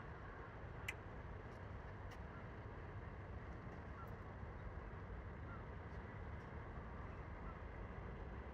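Steady low background rumble with a couple of faint clicks, about one and two seconds in.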